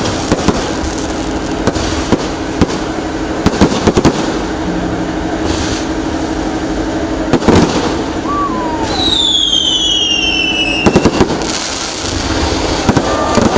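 Fireworks display going off: a continuous crackle of bursting shells and fountains, with sharp bangs scattered throughout. A falling whistle sounds about nine seconds in.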